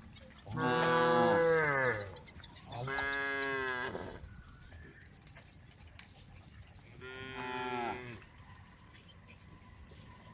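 Cows mooing: three long calls. The first and loudest slides down in pitch, a second follows about a second later, and a quieter third comes after a pause of a few seconds.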